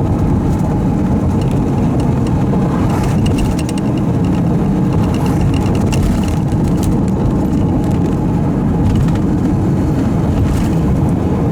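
Steady, loud rumble of road and engine noise from a moving vehicle, with wind noise mixed in.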